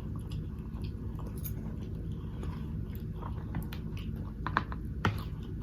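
Close-miked chewing of soft macaroni and cheese noodles: faint wet mouth clicks over a steady low hum, with a few sharper clicks near the end.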